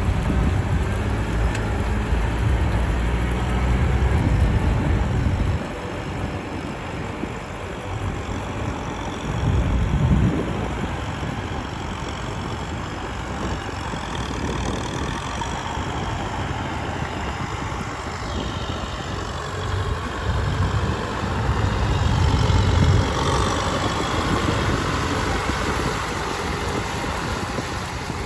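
Diesel tractor engines running under load as they pull rotary tillers through a flooded rice paddy, one of them a Kubota M6040SU. The sound is loudest at the start, drops about five seconds in, and swells again around ten seconds and near twenty seconds as the tractors come nearer.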